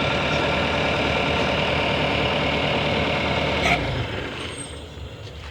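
Backhoe's diesel engine running steadily while it digs. A single knock comes about three and a half seconds in, and the engine then drops and is quieter.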